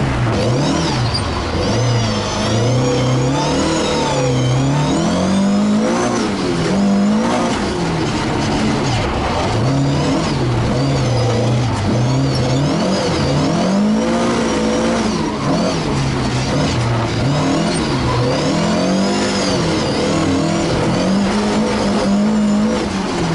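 Ford Escort Mk1 rally car's engine heard from inside the cockpit, revving up and falling back over and over as the car accelerates, lifts off and shifts through the corners.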